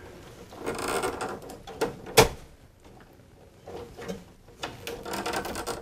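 Insulation being stripped off an electrical wire by hand: scraping and rustling with a few sharp clicks, the loudest about two seconds in. The insulation is tough and hard to strip.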